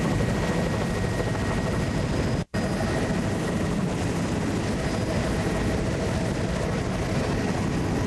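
Steady engine and airframe drone of a small survey aircraft heard from inside the cabin, with a couple of faint steady whining tones in it. The sound cuts out for a split second about two and a half seconds in.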